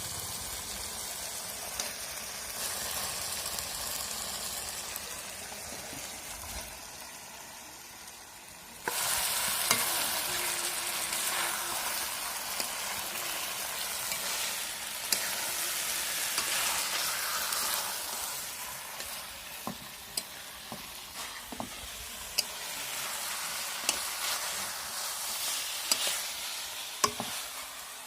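Pork frying in a pan, sizzling steadily while it is stirred, with a utensil clicking against the pan now and then. The sizzle dies down a little, then jumps louder about nine seconds in.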